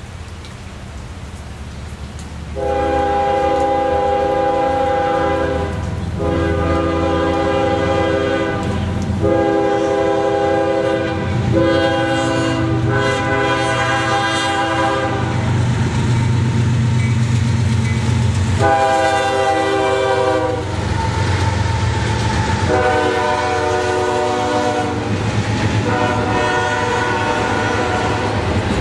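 Diesel freight locomotive's multi-chime air horn blowing a run of about seven blasts, the first four in a long-long-short-long pattern for a grade crossing, over the low rumble of the locomotive's diesel engine. Near the end, double-stack container cars rattle past on the rails.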